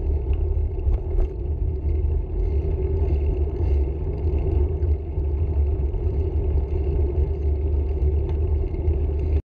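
Steady low rumble of a slow-moving vehicle's running and road noise, heard from on board. It cuts off abruptly near the end.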